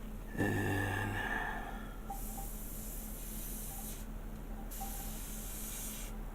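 Airbrush spraying paint in short trigger-pulled bursts, a hiss of air that starts and stops twice with a gap of under a second between. A short, louder hum with a steady tone comes about half a second in, before the spraying starts.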